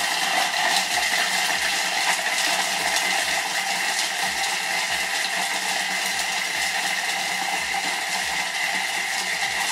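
Thermomix food processor running steadily at speed 4 to 5, its blades chopping black truffle into fine crumbs.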